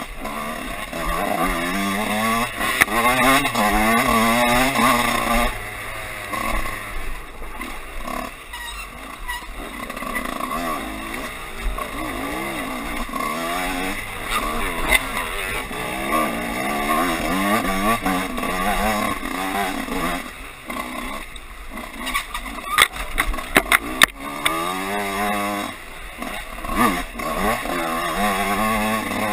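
Dirt bike engine revving up and down through the gears under hard acceleration and backing off, heard from on the bike itself. A quick run of sharp knocks and clacks comes about three quarters of the way through.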